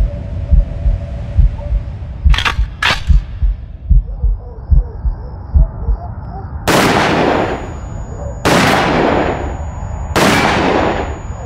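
Pistol shots, three of them about a second and three quarters apart from about seven seconds in, each with a long echoing tail, and a thin high ringing tone after the first. Before them, slow regular low thumps like a heartbeat and two sharp clicks about two and a half seconds in.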